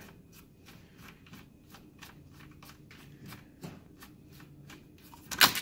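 Phillips screwdriver backing a screw out of a speaker bracket in an HP Pavilion all-in-one computer: a run of faint, quick clicks at about four a second as the screw turns, with one louder click near the end.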